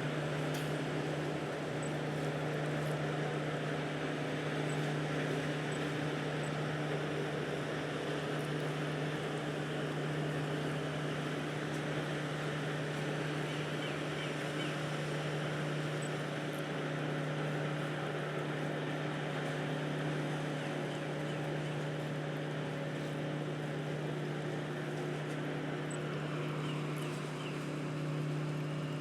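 Cruise ship Riviera's machinery droning steadily as it berths: an even low hum with a few fainter steady tones above it.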